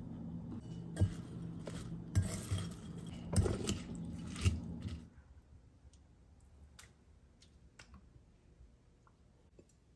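Metal fork tossing shredded cabbage and carrot in a ceramic bowl, rustling the vegetables and clinking sharply against the bowl about four times, over a steady low hum. About halfway through, the hum and tossing stop and only faint light clicks remain.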